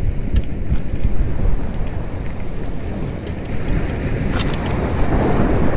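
Wind rumbling on the microphone over water rushing along a boat under way, with a louder surge of splashing near the end.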